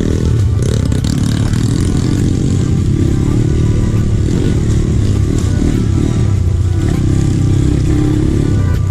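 Trail motorcycle engine running steadily, its revs rising and falling as it rides.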